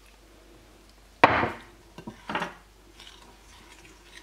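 Metal spoon stirring flour and water in a glass mixing bowl: one sharp scrape of the spoon against the glass about a second in, then a small click and a softer scrape.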